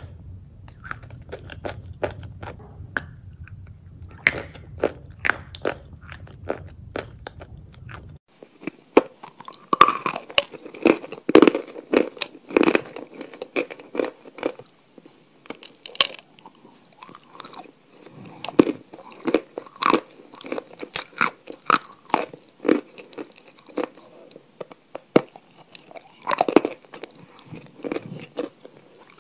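Crunchy food being bitten and chewed close to the microphone: a dense, irregular run of crisp crunches. A low hum sits under the first eight seconds, then stops.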